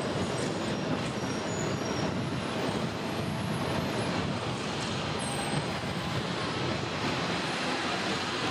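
Hong Kong double-decker electric tram running along street rails, heard from its upper deck: a steady rumble of the moving car, with road traffic and buses around it.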